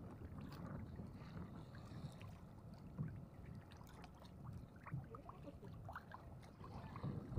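Faint water lapping against the hull of a small fishing boat on choppy water, with a few faint short clicks.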